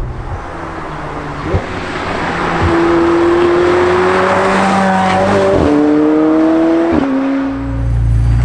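McLaren 720S's twin-turbocharged V8 accelerating past, its note rising steadily and broken by several quick gear changes, each a brief crack as the pitch steps. Tyre and road noise swell in the middle as the car comes closest.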